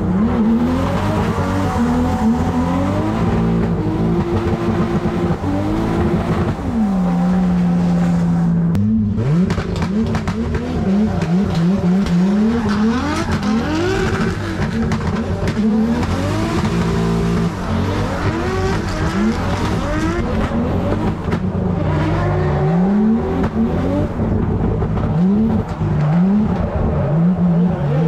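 Drift car's engine heard from inside the cockpit, revving up and down over and over in quick rising sweeps under a constant wash of exhaust and tyre noise as the car slides. About a third of the way in, the revs hold at one steady pitch for a couple of seconds, then drop away briefly before the repeated revving picks up again.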